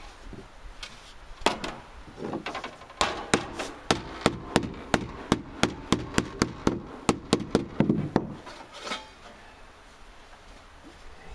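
Claw hammer striking a sheet-metal panel laid flat on wooden deck boards, hammering a bend into it: a few scattered blows, then a fast, even run of about four strikes a second that stops a couple of seconds before the end.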